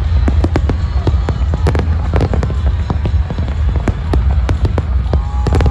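Fireworks going off: many sharp cracks in quick, irregular succession over a steady deep rumble. Near the end a wavering high tone joins in.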